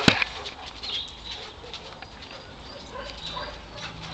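A dog running laps on a dry dirt yard, its paws scuffing and pattering on the soil, with one sharp knock just at the start.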